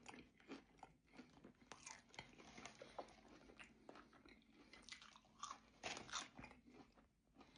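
Faint mouth sounds of a person biting and chewing fried cheesy bacon potato tots, with many small irregular clicks.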